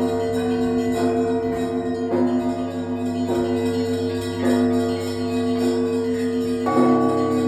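Russian Orthodox church bell ringing (zvon) from a monastery's main bell tower: several bells are struck together in a steady beat about once a second over the long, held hum of the large bells. Near the end a deeper, heavier bell sounds.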